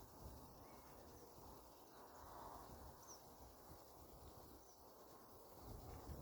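Near silence: faint outdoor ambience with a low rumble and a couple of brief, faint high bird chirps.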